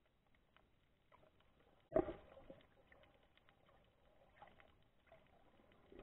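Faint underwater ambience heard through an underwater camera: scattered soft clicks and crackles, with one sharp, much louder knock about two seconds in.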